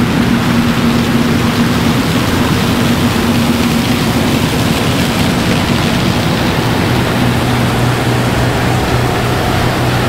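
Case IH combine harvester running steadily: a loud, even machine noise over an engine hum that shifts lower about seven seconds in.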